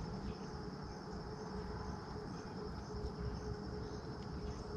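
Insects chirping in a steady, high-pitched trill, over a faint steady hum and a low rumble.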